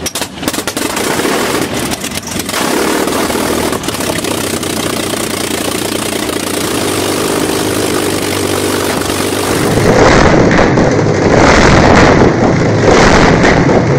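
Liberty L-12 water-cooled 45° V-12 aircraft engine running steadily through short open exhaust stacks. About ten seconds in, the sound switches to a second Liberty L-12 running indoors, louder.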